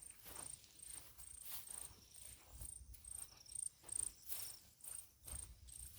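Faint, evenly repeated high chirping of an insect such as a cricket, about two to three short chirps a second, over scattered faint clicks and rustles.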